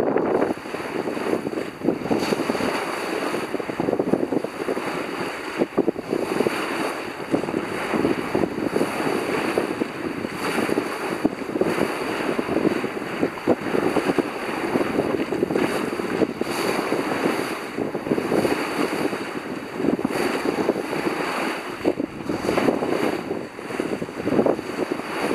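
Water rushing and splashing along the bow of a sailing yacht as she cuts through the waves, with wind buffeting the microphone. The noise surges and eases with each wave, and a few brief knocks cut through it.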